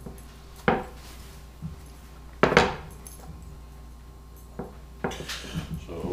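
Kitchen clatter while a burrito is folded by hand on a wooden cutting board: a few sharp knocks and clinks, the loudest about two and a half seconds in, with a busier patch of small knocks near the end.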